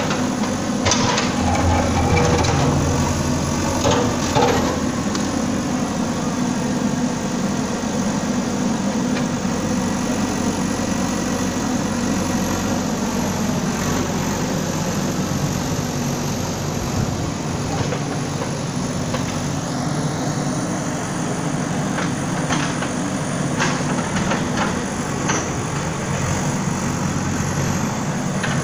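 Bulldozer's diesel engine running steadily, with a few sharp knocks and cracks about a second in, around four seconds in, and again in the last few seconds.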